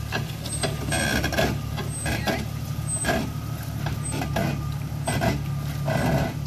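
Jeep Cherokee XJ engine running low and steady as the Jeep crawls down a rock ledge. Repeated crunches, scrapes and knocks sound every second or so as its tyres and underside work over the rock.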